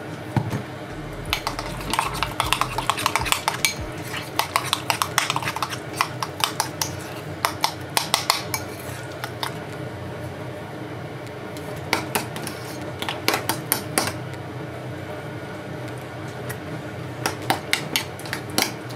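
A metal spoon clinking and scraping against a glass bowl while stirring and mashing a thick avocado tartar sauce, in bursts of rapid clicks with short pauses between.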